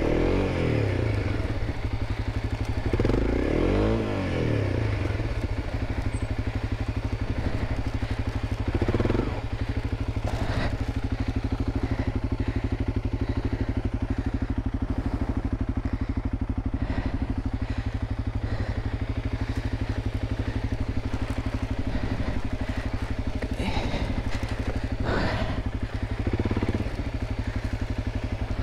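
Honda CRF300 Rally's single-cylinder engine idling steadily, revved up and back down twice in the first few seconds and briefly a couple more times later, with a few sharp knocks and clatters.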